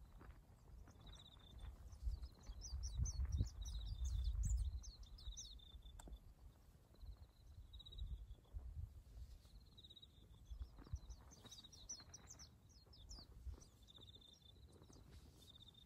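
Small birds chirping on and off, with a short buzzy trill that comes back every few seconds, over a low rumble that swells about three to five seconds in.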